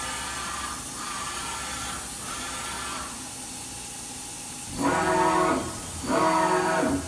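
Daewoo DMV-500 CNC vertical machining center running its axes through short repeated traverse moves. The axis drives give a pitched whine in pulses about once a second over a steady hiss, faint at first and much louder from about five seconds in.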